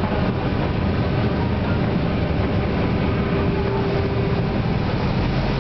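Car ferry's engines running with a steady low rumble and hiss as the ship pulls away from the quay, with a faint steady hum over it.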